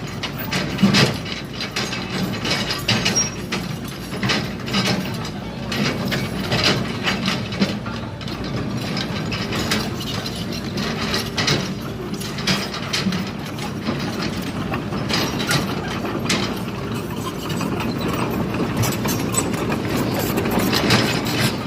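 Caterpillar 320D hydraulic excavator at work: its diesel engine runs steadily under frequent, irregular clanks and knocks.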